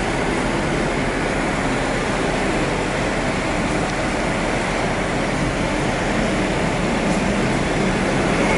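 SMRT C751B electric metro train running in along the elevated track, a steady rumble that grows a little louder near the end as it nears.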